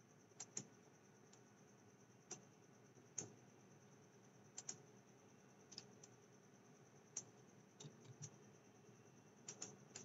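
Faint computer mouse clicks, about a dozen scattered irregularly, several in quick pairs like double-clicks, over a faint steady high-pitched hiss.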